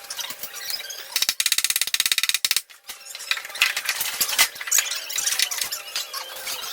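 Electric welding on a Vespa's steel body panel: the arc crackles in irregular sputters, with a fast, even run of crackles a little over a second in.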